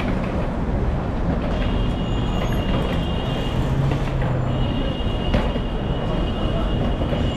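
Steady rumble of city street traffic, with a high steady whine that comes in twice for a few seconds.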